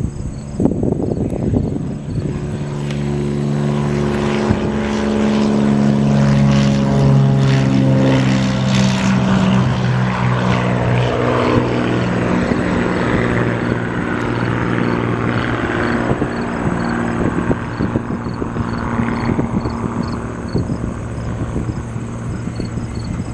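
Lancair Legacy single-engine propeller plane at full takeoff power: the drone of its engine and propeller grows louder during the takeoff roll and peaks as it passes, about six to eight seconds in. It then drops in pitch and slowly fades as the plane climbs away.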